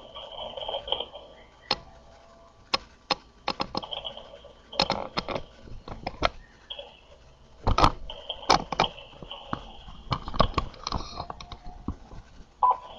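Irregular sharp clicks and knocks, sometimes several a second, over a faint wavering background.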